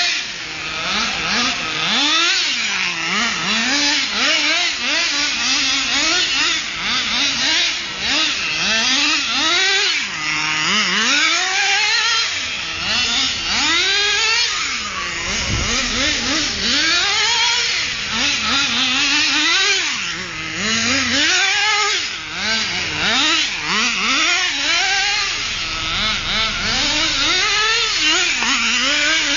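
HPI radio-controlled car's small two-stroke engine, revved up and eased off over and over as the car is driven around, its pitch rising and falling every second or two.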